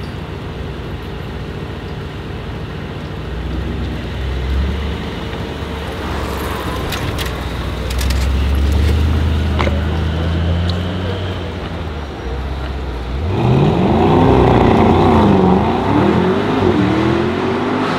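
Mercedes-AMG SL 63's twin-turbo V8 running at low speed, then accelerating hard about 13 seconds in. Its pitch rises, dips once at an upshift and rises again, and this is the loudest part.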